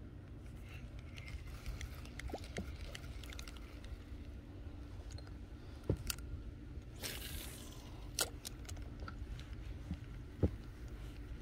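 Quiet handling noise from fishing tackle while a worm lure is bounced and left to sink: a few sharp clicks and knocks and one short hiss about seven seconds in, over a low steady hum.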